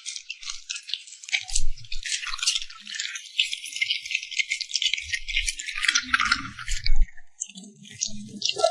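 A dog chewing and crunching food, a dense run of quick small clicks.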